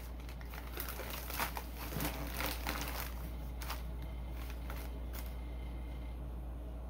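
Scattered short rustles and light clicks of beer glasses and packing being handled and lifted out of a box, dying away after about five seconds. A steady low hum runs underneath.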